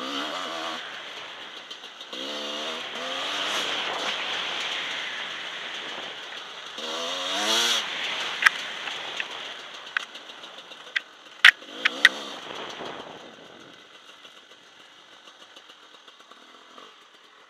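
Husqvarna WR300's single-cylinder two-stroke engine being ridden off-road, its revs surging up and down several times under throttle. A few sharp knocks come in the middle. The engine drops to a quieter off-throttle run near the end.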